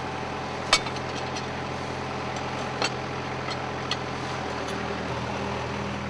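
Kubota compact tractor's diesel engine running steadily, driving the hydraulic log winch as a log is pulled in. Its note shifts slightly about two-thirds of the way through, and a few sharp clicks sound over it.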